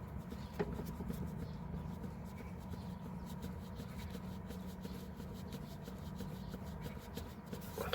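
Faint clicking from the exhaust camshaft phaser of a Mitsubishi 4B1x engine being rocked back and forth by hand. The clicks come from play at the phaser's key on the camshaft, the cause of the engine's knock when cold. A steady low hum runs underneath.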